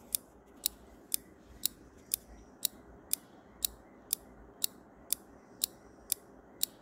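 Countdown timer ticking sound effect: short, sharp, even ticks, about two a second.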